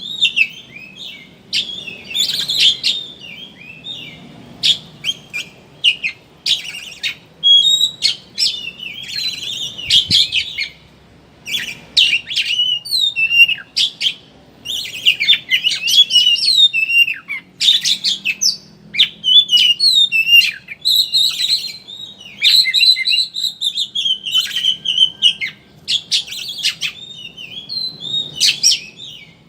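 Oriental magpie-robin (kacer) singing a fast, varied chattering song: rapid high chirps, quick up and down whistled slurs and sharp clicking notes, broken by short pauses.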